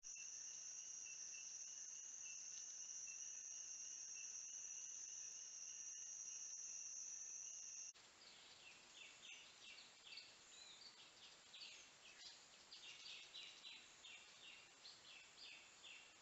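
Rainforest insect chorus: a steady high-pitched drone with a second, pulsing tone below it, until a cut about eight seconds in. After the cut it is quieter, with a scatter of short high chirps.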